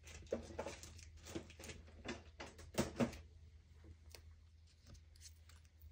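Handling noises of craft supplies on a work table: a quick run of light taps, clicks and rustles, busiest in the first three seconds with two sharper clicks about three seconds in, then a few faint ones near the end, over a low steady hum.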